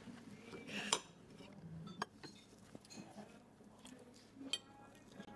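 Knife and fork clinking faintly against a plate while cutting into a mille-feuille, a few separate sharp clicks.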